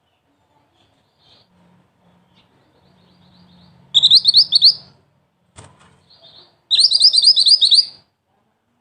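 A mantenan, a small black-and-red songbird, giving two fast bursts of high, sharp chirps, each lasting about a second, about four and seven seconds in. Fainter scattered notes come before them.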